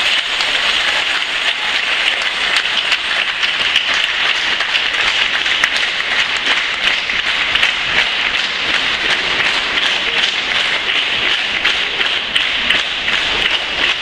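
Audience applauding: dense, steady clapping from many hands after a choir has finished singing.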